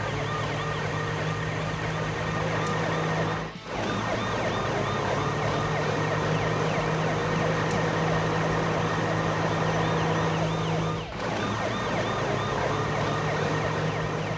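Several emergency-vehicle sirens wailing at once, their rising and falling tones overlapping, with two brief dropouts about three and a half seconds and eleven seconds in.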